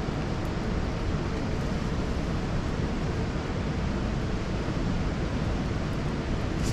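Steady rush of ocean surf and wind, an even noise without distinct wave breaks.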